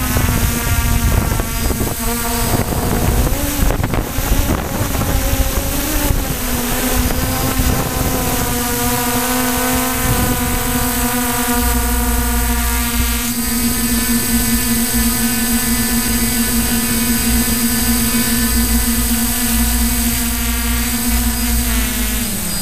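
DJI Flamewheel multirotor's electric motors and propellers buzzing, picked up by the camera on the airframe. The pitch wavers for the first several seconds as the throttle changes, holds steady as it hovers low over the grass, then drops near the end as the motors slow.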